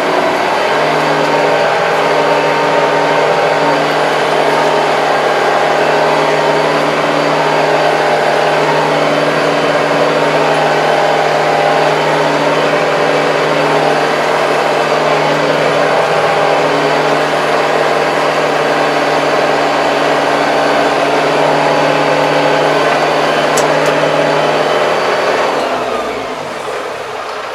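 Kubota 75 hp tractor's diesel engine running at a steady pace, heard from inside the cab while driving. Near the end the engine note slides down and the sound drops in level.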